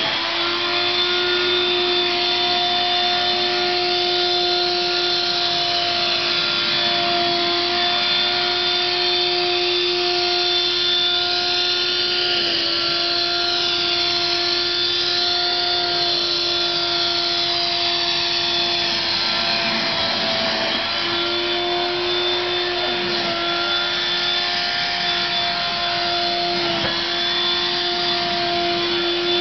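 Vacuum cleaner running steadily: a constant motor hum over rushing air, its tone wavering briefly about two-thirds of the way through.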